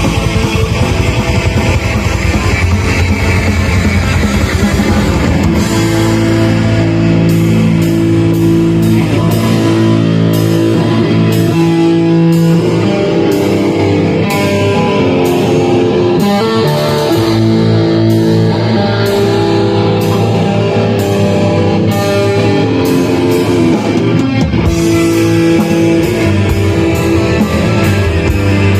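Live metal band playing: distorted electric guitars over drums. The dense low drumming drops away after about six seconds, leaving long held guitar chords with lighter cymbal hits.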